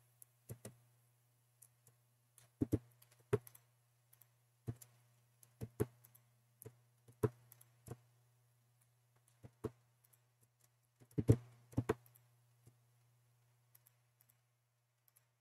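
Computer mouse and keyboard clicks, irregular and spaced out, several in quick pairs, over a faint steady low hum.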